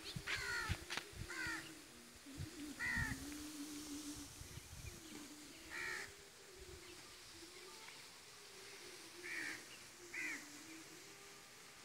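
Crows cawing in the distance: about seven short, harsh calls at uneven intervals, several close together in the first second and a half, then single caws spaced several seconds apart.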